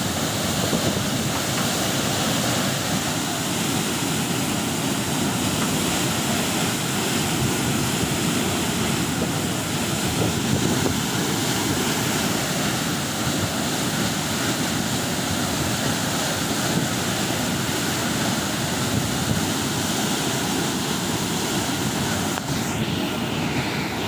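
Burst water-supply pipeline gushing a tall fountain of muddy water under high pressure, a steady, loud rushing of water that does not let up.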